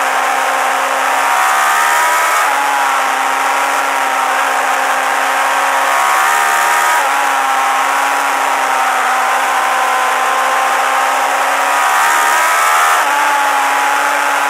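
Suzuki GSX-R1000 superbike's inline-four engine running at high revs under a steady wind rush over the onboard microphone; its note climbs and drops back a few times, about two and a half, six and thirteen seconds in, as the rider changes gear.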